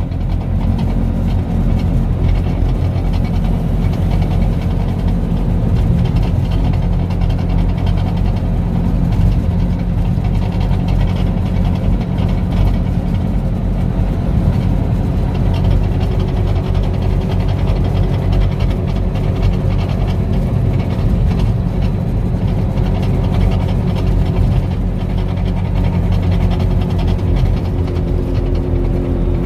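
Bajaj Qute running with its single-cylinder engine, alongside a steady metal-on-metal knocking from the front. It sounds "bien feo", and the owner puts it down to a worn stabilizer-bar mount.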